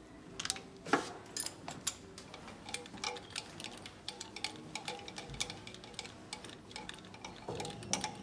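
Light metallic clicks and ticks, several a second at times, from hand work on the cylinder head of a Renault K9K 1.5 diesel engine as the compression-tester fitting is moved between cylinders.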